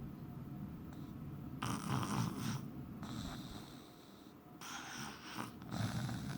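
A sleeper snoring: a low rasping snore on each breath, loudest about two seconds in and again near five seconds, roughly three seconds apart, with softer hissing breath in between.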